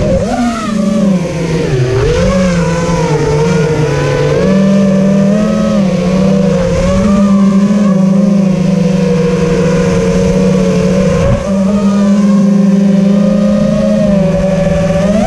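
FPV quadcopter's motors and propellers buzzing loudly, recorded from the quad's onboard camera. The pitch swings up and down with throttle in the first few seconds, then holds fairly steady with small steps, dips briefly past the middle and climbs near the end.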